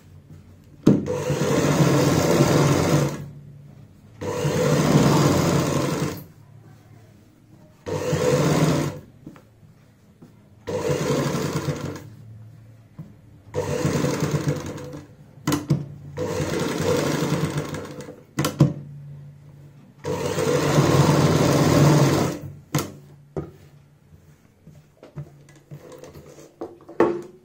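Sewing machine stitching an edge seam along a kurti neckline in about seven short runs of one to two seconds each, with brief pauses between them. A few small clicks follow near the end.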